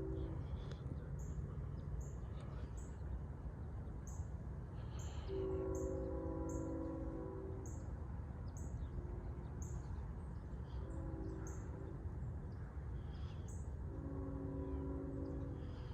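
Distant locomotive air horn sounding a chord in separate blasts: a long one, two short ones, then another long one, over a steady low rumble. A bird chirps high and steadily about once a second.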